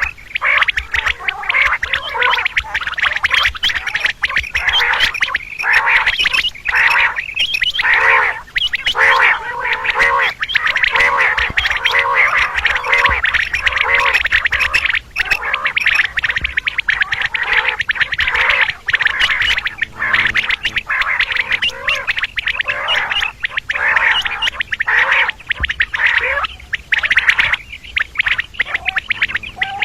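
Quail calling without a break: many overlapping repeated chattering calls with short arched notes, the female quail's call used as a hunting lure.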